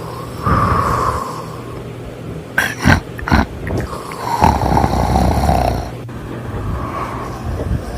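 A person snoring: long snores every few seconds, with a few short, sharp snorts about three seconds in.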